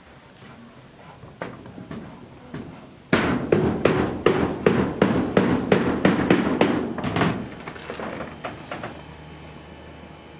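Hammer blows, a quick run of about fourteen sharp strikes at roughly three a second for some four seconds. A few lighter knocks come before and after the run.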